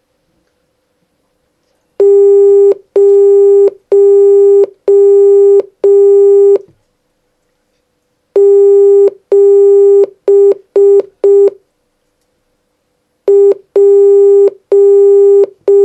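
Electronic Morse code beeps: one steady tone keyed in long dashes and short dots, in three groups with pauses between. They spell five dashes (the digit 0), then dash-dash-dot-dot-dot (8), then a dot and dashes beginning the next digit, 1.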